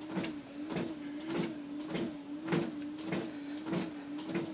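Treadmill running at 2 miles per hour under a walker: a steady motor hum that wavers with each step, and footsteps on the belt about one and a half times a second.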